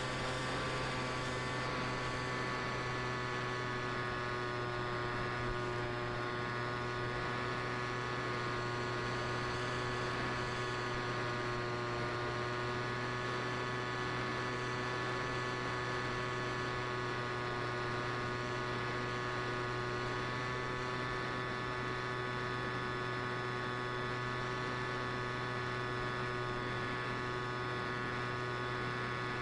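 Steady electrical hum with a stack of steady overtones, from the FPV flying wing's electric power system and video link in level cruise; the pitch drifts only slightly.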